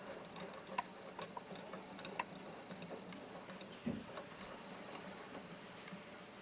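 Faint, irregular light clicks of a tool turning the pistol grip screw into an AR-15 lower receiver, with a soft knock about four seconds in.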